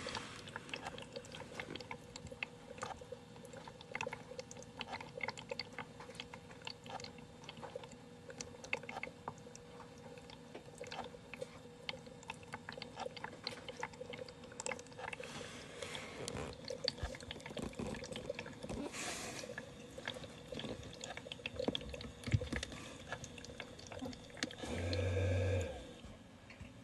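Volcano-style aroma diffuser running, faint and close: irregular small clicks, ticks and water drips over a steady low hum. Near the end a brief louder hum comes in for about a second.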